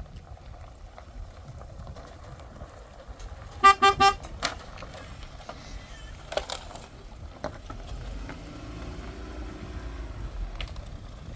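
A vehicle horn honking three short times in quick succession, about four seconds in, over a low background rumble.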